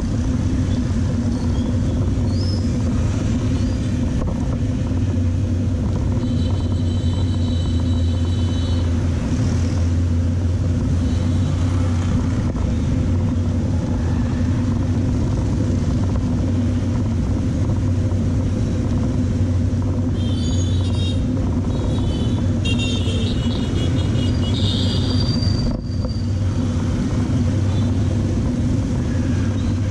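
Motorbike engine running at steady road speed with road and wind rumble, heard from a camera riding on the bike in street traffic. A few short high-pitched beeps come about seven seconds in and again about twenty seconds in.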